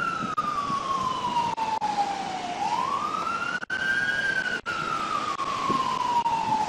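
Police car siren on its wail setting: one tone that slides slowly down and then climbs quickly back up, about once every four and a half seconds.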